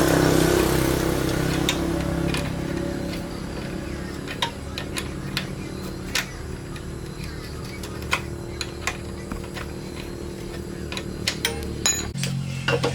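YLHX 1500 generator's engine running steadily, easing down in speed within the first few seconds and picking up again near the end, with sharp clicks and taps over it.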